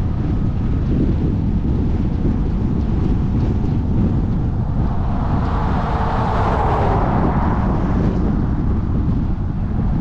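Case IH 8120 Axial-Flow combine running through corn, a steady low rumble with heavy wind noise on the microphone. About five seconds in, a higher whine swells up and fades again over a few seconds.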